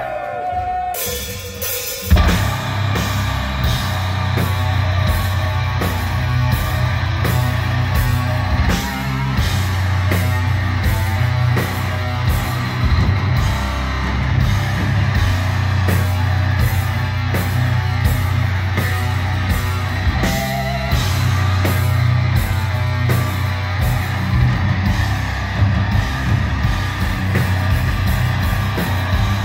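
Heavy metal band playing live: distorted electric guitars, bass guitar and a drum kit with cymbals. A single held note opens, then the full band crashes in about two seconds in and keeps playing.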